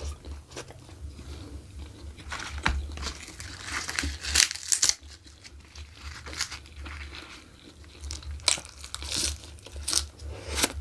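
Close-miked eating sounds: a man chewing mouthfuls of rice and jengkol in chili sambal, eaten by hand, with irregular wet clicks and crackles of the mouth and fingers.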